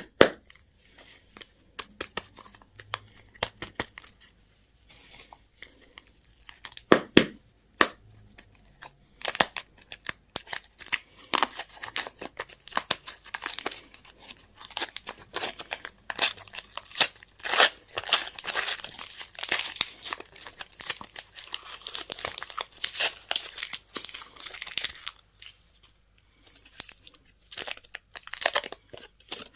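Candy and surprise-egg wrappers being torn open and crinkled by hand, in many quick crackles. The crackles are sparse at first and become dense and busy for most of the middle stretch.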